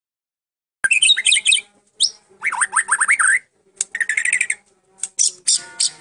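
White-rumped shama (murai batu Medan) singing a loud, varied song of quick chirps, rising slurred whistles and short trills in phrases broken by brief pauses. It starts about a second in and ends in a run of fast repeated notes. The song holds phrases learned from other birds (isian) such as cililin, cucak jenggot, canary and prinia.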